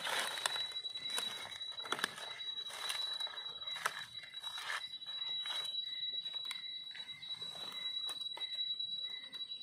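Dry leaf litter and twigs crackling and rustling underfoot and under a knife blade as a wild mushroom is dug out of the forest floor: a string of short crunches and clicks. A steady high-pitched whine runs underneath throughout.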